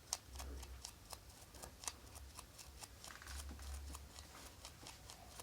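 Faint, irregular small clicks and ticks, several a second, from hands handling a mobile phone and small repair tools.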